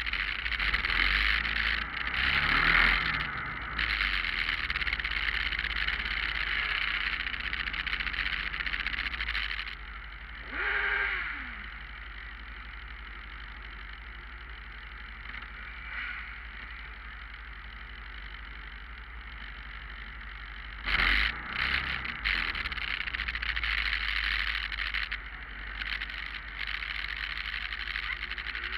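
Several motorcycles running at low parade speed, their engines a steady low rumble under a rushing noise. There is a brief falling pitch about a third of the way in, and a louder surge near the start and again about two-thirds of the way through.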